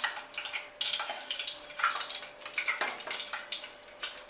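Hot refined white oil sizzling and crackling in a kadai, the irregular spitting of deep-frying.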